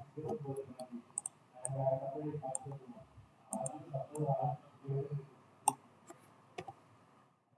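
Computer mouse clicking: a few sharp single clicks spaced irregularly, about a second or more apart, as wires are placed in layout software. Faint talk runs underneath.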